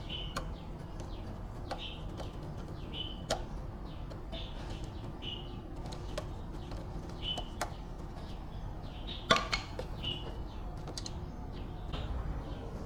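A small bird chirping, short high calls about once a second, over a steady low hum. A few sharp clicks or knocks break in, the loudest about nine seconds in.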